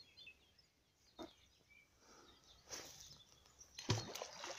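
Rope and hand rustling with a few short knocks while a magnet-fishing rope is being knotted around the wrist, the loudest noise about four seconds in. A faint bird chirp is heard.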